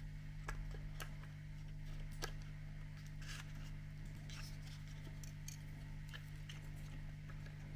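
Faint scattered clicks and small scrapes of a plastic OO gauge model locomotive body shell being eased down over its chassis and decoder wiring by hand, over a steady low hum.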